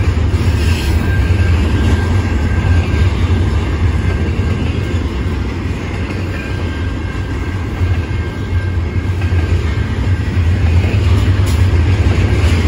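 Double-stack container well cars of a CN intermodal freight train rolling past, a loud steady rumble of steel wheels on the rails with a faint high whine.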